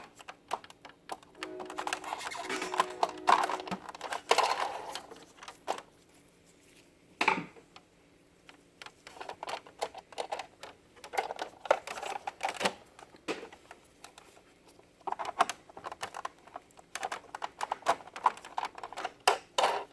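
Plastic clicks and rattles of printer ADF parts being handled and snapped into place as the spring-loaded pickup and separation rollers of an HP LaserJet M425 document feeder are fitted. The clicks come in uneven clusters with short quiet gaps.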